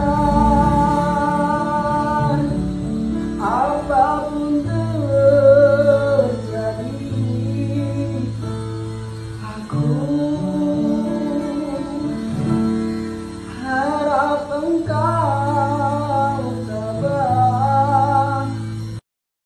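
A man singing to his own acoustic guitar accompaniment, the voice carrying the melody over held bass notes. The sound cuts off suddenly near the end.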